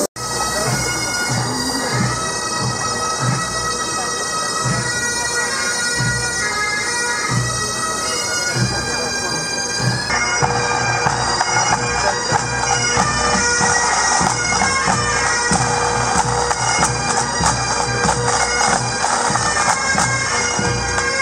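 Massed pipe band playing: Highland bagpipes with their steady drone and chanter melody over regular bass drum beats. The drumming gets busier and the sound fuller about halfway through.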